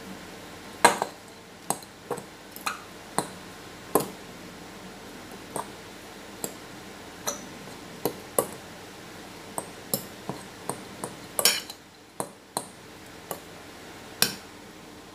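Metal fork clinking against a glass mixing bowl as mashed potato is stirred and mashed. Irregular sharp clinks come about one or two a second, with the loudest about a second in and near the end.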